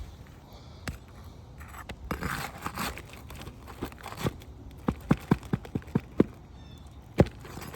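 Roofer's snake tool being worked under an asphalt shingle: a scraping, tearing stretch about two seconds in, then a quick run of about seven sharp hammer taps on the tool and one harder strike near the end.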